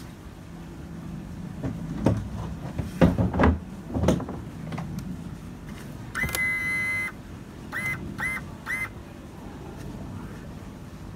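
Several heavy knocks. Then an electronic beep held for about a second, followed by three short beeps of the same pitch.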